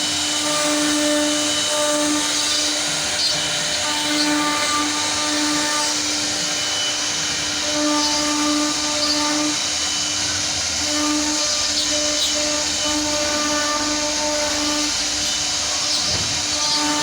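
CNC machine running, its spindle giving a steady motor whine over a hiss of cutting noise.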